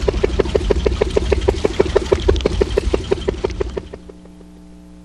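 Small inboard engine of a disappearing propeller boat (Dispro) putting along at about seven even beats a second, then cutting out about four seconds in, leaving a faint steady electrical hum.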